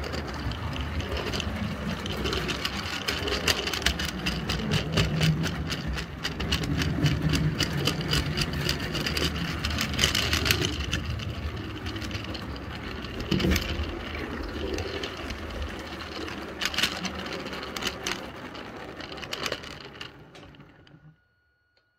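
A 16 mm scale model train of metal tipper wagons hauled by a Roundhouse 0-6-0 electric locomotive running along the track, heard from on board a wagon: a steady rumble and rattle with rapid clicking from the wheels. It dies away about a second before the end as the train stops.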